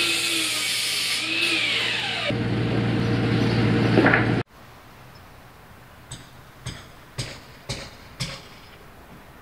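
Sliding mitre saw running loud, its whine falling away as the blade spins down, cut off abruptly about four and a half seconds in. Then five sharp clicks about half a second apart from the trigger of an expanding-foam gun.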